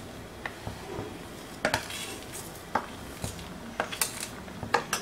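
A metal spoon clinking and scraping against a steel plate, in a series of irregular clicks, as semolina is sprinkled a little at a time into boiling water. The water bubbles steadily in the iron pan underneath.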